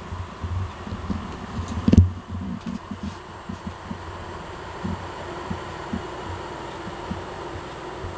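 Soft, irregular low thumps and bumps, the loudest about two seconds in, over a steady faint hum.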